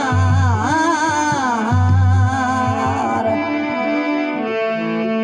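Rajasthani folk devotional bhajan: a voice draws out a wavering, ornamented note for about three seconds over instrumental accompaniment, then held instrumental notes carry on with low drum strokes under the first half.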